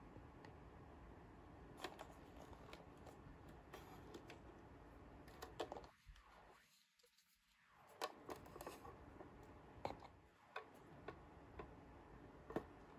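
Faint, scattered clicks and taps of small toy pieces being handled, at uneven intervals over a quiet background hiss.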